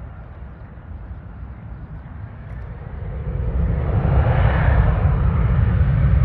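Jet airliner passing close by: its engine noise swells from about three seconds in to a loud, steady rush with a deep rumble underneath.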